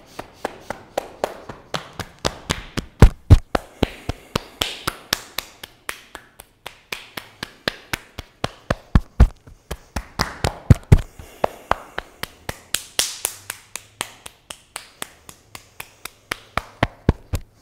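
Open hands patting the body, a quick steady run of slaps about three to four a second, loudest a few seconds in.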